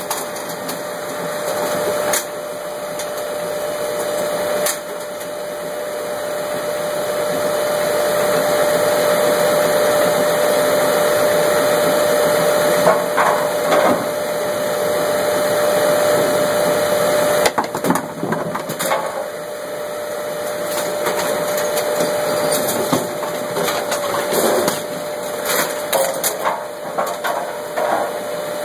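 Brunswick A-2 pinsetter running through its cycle: a loud, steady machine drone with a constant whine, broken by sharp knocks and clatters from the moving deck and pins, with a burst of knocks near the end.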